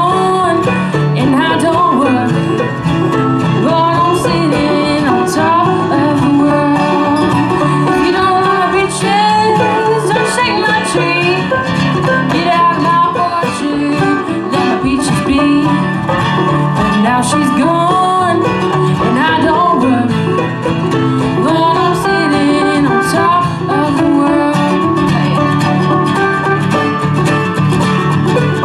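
Live acoustic bluegrass band playing a fast blues song, with banjo and guitar picking and singing.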